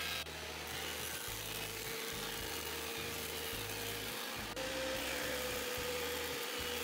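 Thickness planer running with a steady motor whine and a hiss as it planes pallet boards. The sound changes abruptly twice, and about four and a half seconds in the whine steps a little higher.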